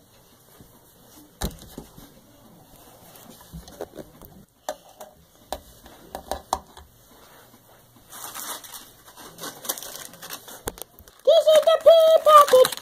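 Faint handling clicks and knocks, then plastic packaging crinkling from about eight seconds in. Near the end a high-pitched voice comes in loudly, drawn-out and wavering.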